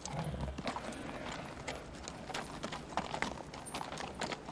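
Hooves of several horses clopping on gravel ground: irregular strikes.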